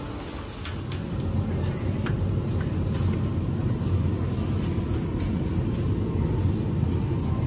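Steady low rumble, louder from about a second in, with a faint steady high whine and a few light clicks.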